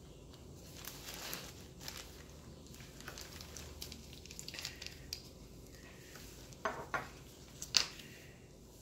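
Quiet handling sounds as a small bottle's cap is twisted off and the bottle is moved about: faint rustling and small clicks and taps, with a few sharper clicks a little before the end.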